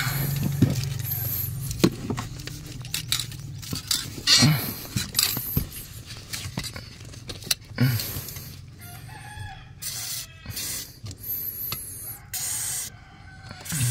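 Clutch pedal pumped over and over, its linkage giving off a run of clicks and knocks as freshly sprayed dry lube is worked into the squeaking spring and joint. A rooster crows twice in the background in the second half.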